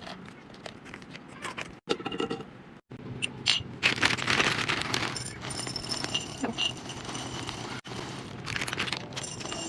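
Food packaging and containers being handled during a restock: plastic crinkling, scraping and light clicks and knocks, broken by a few abrupt cuts.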